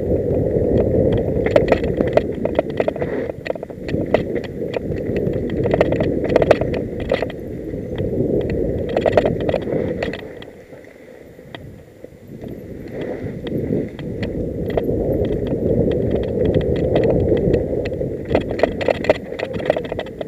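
Mountain bike riding fast down a dirt singletrack: a continuous rumble of tyres on dirt, with frequent irregular clicks and rattles from the bike jolting over bumps. It eases off briefly about halfway through, then picks up again.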